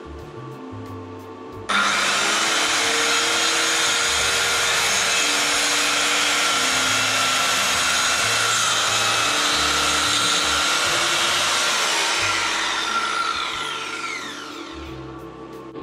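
Handheld Bosch circular saw cutting through a wooden board: it comes in abruptly about two seconds in and runs steadily under load, then spins down with a falling whine near the end once the cut is finished.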